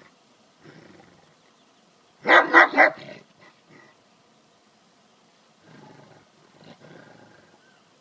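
Large dog barking in a quick run of loud barks about two seconds in, with softer low vocal sounds before it and again near the end, as it warns off a goat butting at it.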